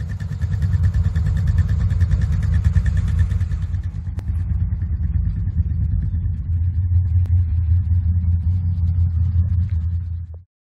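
A vehicle engine running steadily at idle, a low, even drone that cuts off abruptly near the end.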